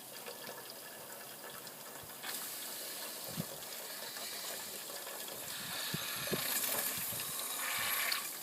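Steam injector feeding water into a small vertical fire-tube boiler: a rushing hiss of steam and water comes in about two seconds in, grows louder, and cuts off suddenly near the end. The injector is acting up rather than feeding smoothly.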